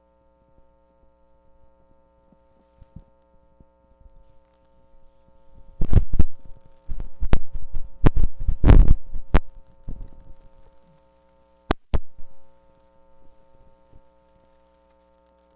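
A cluster of knocks and thumps of handling, then two sharp clicks, over a steady electrical hum.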